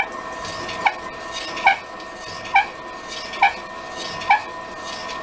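Pillar drill running at slow speed, turning a fly-cutter that bores out an ironwood neck bearing. A short squeak that drops in pitch repeats about every 0.9 s over a steady machine hum.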